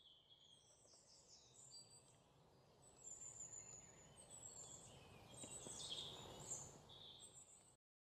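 Faint outdoor ambience: small birds chirping and singing over a low, steady rumble of background noise. It grows slightly louder and then cuts off abruptly near the end.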